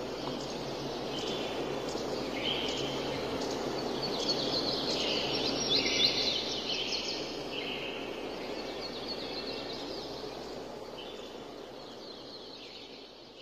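Forest ambience: a steady background hiss with scattered bird calls, busiest in the middle, fading out near the end.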